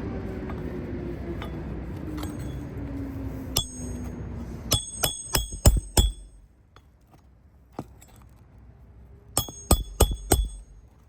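A steel hammer striking a roofing nail into an asphalt shingle, with a sharp metallic ring on each blow: one blow, then a quick run of about five, and after a few seconds' pause a second run of four.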